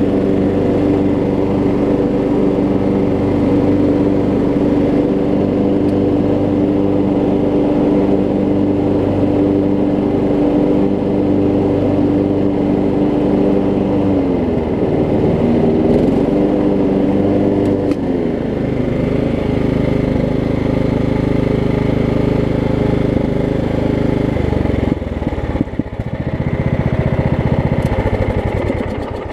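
A Craftsman riding mower's 15.5 hp single-cylinder Kohler Command engine running steadily under way. About halfway through the engine speed dips and then recovers; near the end the sound turns lower and rougher and begins to die away.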